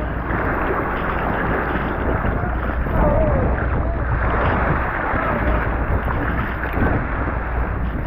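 Fishing bangka at sea: a steady low rumble under an even rush of wind and water, with no break or change.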